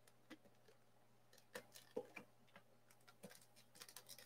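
Faint, irregular clicks and taps of small hard parts being handled, with near silence between them.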